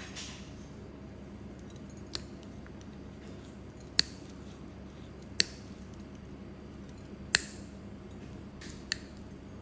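Steel nail nippers snipping through a toenail: five sharp, separate clicks a second or two apart, the middle three the loudest, over a steady low hum.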